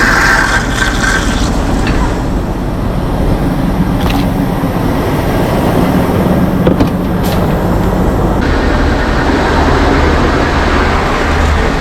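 Heavy diesel engine of a fire truck running steadily, with a constant rushing noise over it: a truck engine and pump working while the trucks are resupplied with water. A high whine in the first second or so fades away.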